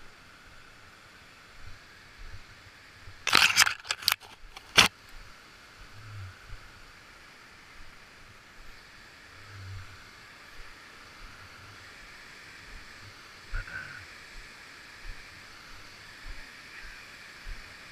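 Steady distant rush of river rapids, broken about three to five seconds in by a brief cluster of loud knocks and scrapes, with a few faint ticks later.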